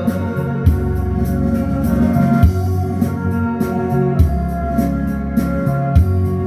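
Instrumental break of a karaoke-style backing track: electronic organ chords over a steady drum beat, with no singing.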